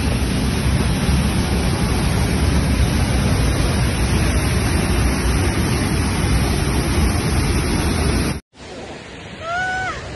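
Water pouring down a waterfall close by: a loud, steady rush that cuts off suddenly about eight and a half seconds in. Quieter running water follows, with one short high voice cry near the end.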